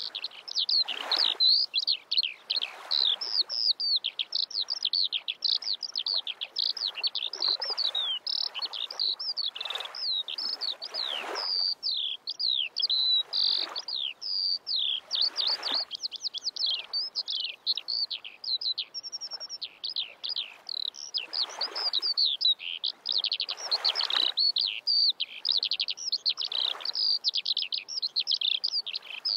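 Birdsong: a dense, continuous chorus of rapid chirps and twitters from many small songbirds.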